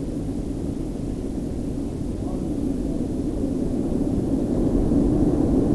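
Hurricane wind gusting hard against the microphone, a low rumbling rush that slowly builds toward the end.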